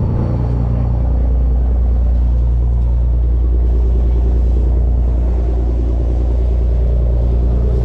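A sportfishing boat's engines running with a steady, loud low rumble.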